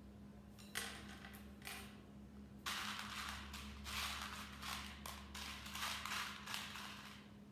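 Fingers rummaging through a bowl of loose glass and plastic beads: a rapid clattering rattle from about three seconds in, after a few lighter clicks of beads being handled about a second in.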